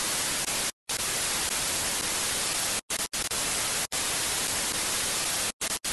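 Television static: a steady white-noise hiss that cuts out abruptly for split-second dropouts several times, about a second in, around three and four seconds, and near the end.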